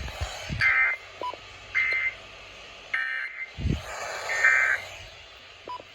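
Emergency Alert System end-of-message data bursts: four short, buzzy digital tone bursts about a second apart, signalling the end of the alert. A few low thumps sound between them.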